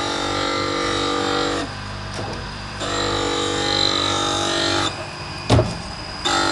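Automatic saw-sharpening machine grinding teeth in a repeating cycle: a steady high grinding whine for about two seconds, a pause of about a second as the blade is indexed, then the next pass. A sharp clack sounds near the end.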